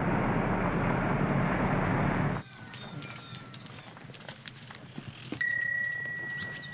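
Car driving on a gravel dirt road: a loud, steady rush of tyre and road noise that cuts off about two and a half seconds in. Then goats moving about in a pen, with scattered small clicks and a steady high tone for about a second near the end.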